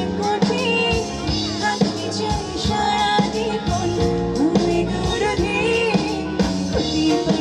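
Live band performance: a woman singing a melody into a microphone over electric bass, electric guitar and a drum kit.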